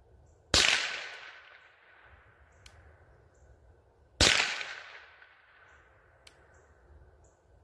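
Two shots from a Rossi RS22 semi-automatic .22LR rifle firing 40-grain Remington Thunderbolt rounds. Each is a sharp crack whose echo dies away over about a second, with the second shot about three and a half seconds after the first.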